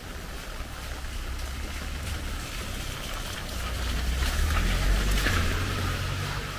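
Rain falling steadily on a wet street, with a low rumble underneath that swells about four to five seconds in.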